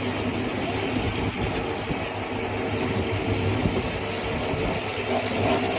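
A boat's motor running with a steady, even hum.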